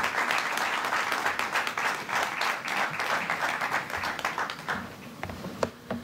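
Audience applauding, a dense patter of many hands that dies away over the last second or two, ending in a few scattered claps.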